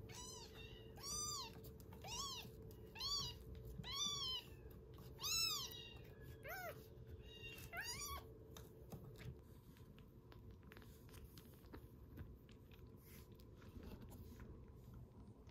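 A very young kitten mewing: high-pitched calls that rise and fall, about one a second, eight in all. Then it falls quiet, leaving only faint clicks.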